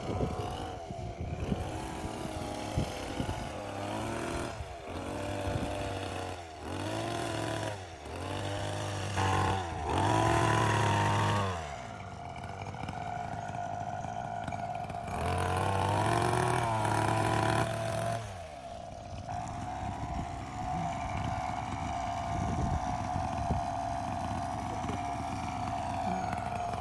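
Petrol hedge trimmer's small engine revving up and down again and again as the blades cut through a cypress hedge, with two longer full-throttle runs partway through. It then settles to a steady idle for the last several seconds.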